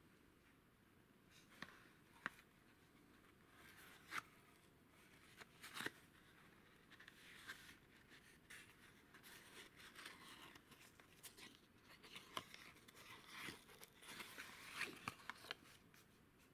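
Faint rustling, scraping and small clicks of a small, old cardboard vacuum-tube box handled and opened by hand, with the handling noise busier in the second half.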